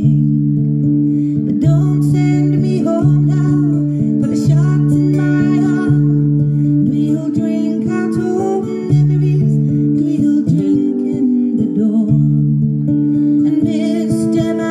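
Acoustic guitar played live in a slow waltz, a low bass note changing about every second and a half under a picked pattern, with a woman singing over it, most plainly near the end.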